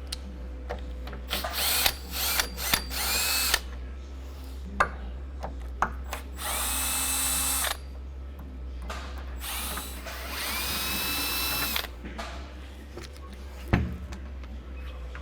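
Power drill running in a few short bursts, then two longer steady runs of about a second and two seconds, its motor whine rising as each run starts, while backing out the fasteners that hold a bed's headboard to the frame. A single knock near the end.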